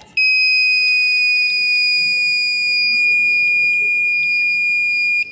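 Piezo buzzer on an Arduino earthquake detector sounding one continuous high-pitched alarm tone for about five seconds, starting and stopping abruptly. The buzzer sounds when the accelerometer senses shaking past the set threshold, the detector's earthquake warning.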